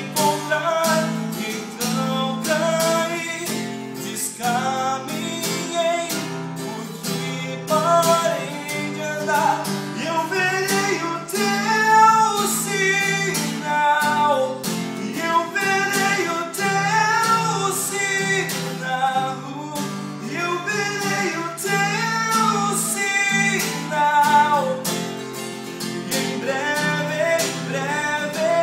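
A man singing a song while strumming chords on a Giannini cutaway acoustic guitar.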